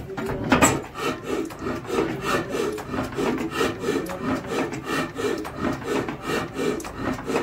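Old stationary horizontal diesel engine running, a steady rhythmic chugging with a sharper knock about half a second in.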